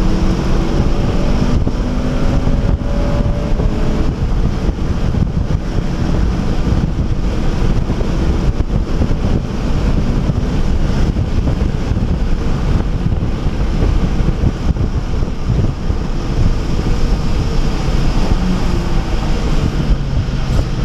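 Cabin noise of a 2011 Honda Civic Si at speed on a wet track: its 2.0-litre four-cylinder engine pulls with a slowly rising pitch over the first few seconds, then a loud, steady rush of tyre hiss, water spray and wind covers it.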